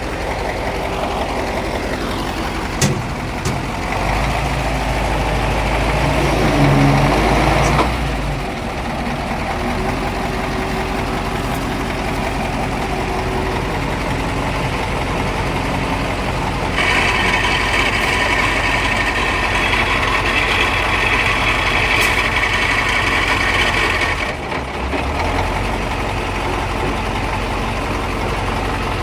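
KamAZ truck's diesel engine running, louder for a few seconds early in the stretch. A higher hiss or whine joins it for several seconds in the second half.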